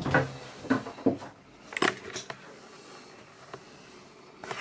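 A handful of light knocks and bumps in the first couple of seconds, then a quiet stretch.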